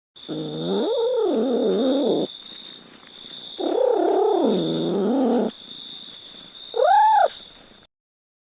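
A cat yowling: two long, wavering yowls of about two seconds each, then a short, louder meow that rises and falls in pitch.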